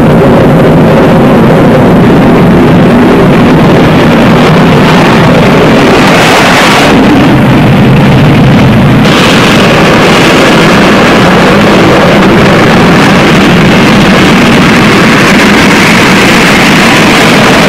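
Jet fighter engines on an aircraft carrier's flight deck: a loud, steady, heavy rumble. A hissing rush swells about six seconds in and grows again from about nine seconds as a fighter approaches the ship.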